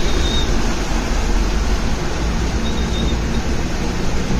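Vehicle ploughing through deep floodwater: a steady loud rush and splash of its bow wave, with a low engine rumble underneath.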